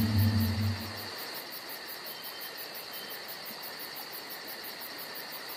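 The tail of deep, low outro music dies away about a second in. It leaves a steady bed of insects chirping in a fast, even, high-pitched pulse.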